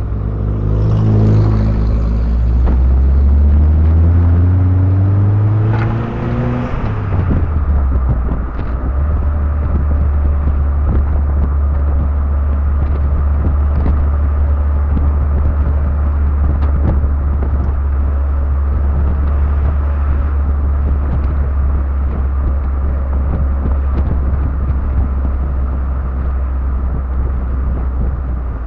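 MGB roadster with the top down under way: its four-cylinder engine rises steadily in pitch under acceleration for about six seconds, then drops away. After that a steady low wind rumble on the microphone, heavy enough to bury the engine, runs on as the car cruises.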